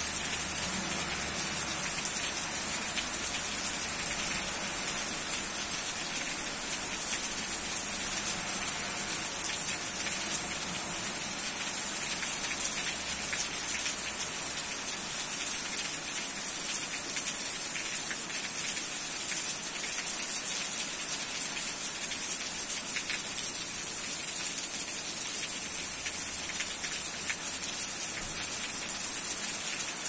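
Heavy rain falling steadily, an even, unbroken hiss.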